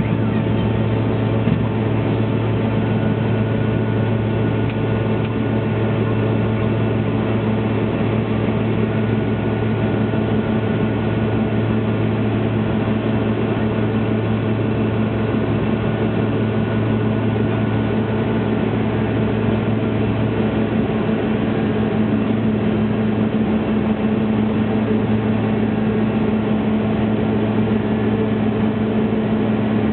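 Jet airliner cabin noise during the climb after takeoff: a steady drone of engines and airflow with a constant low hum, heard from inside the cabin.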